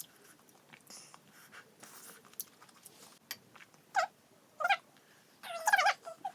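A cat meowing: two short meows about four and four and a half seconds in, then a longer, wavering one near the end.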